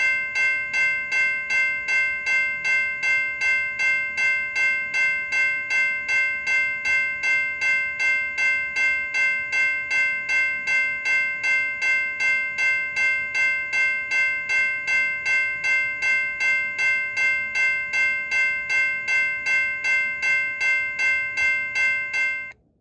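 General Signals Type 2 electronic railroad crossing bell ringing, a steady electronic ding about twice a second with a bright ringing tone between strikes. It cuts off suddenly near the end.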